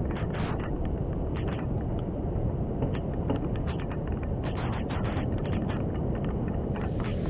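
Wind buffeting the microphone in a steady low rumble, with raindrops striking the phone in scattered sharp ticks. A rushing hiss comes in near the end.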